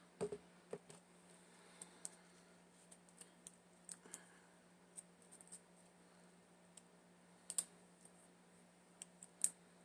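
Scattered light clicks and taps at irregular intervals from handling a freshly cut label-maker label and a lash box, the two loudest near the end.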